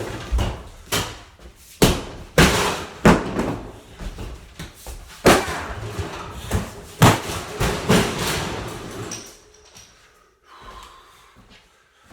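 An axe striking a refrigerator's cabinet in heavy, uneven blows, about nine hits over eight seconds, with the strikes dying down near the end.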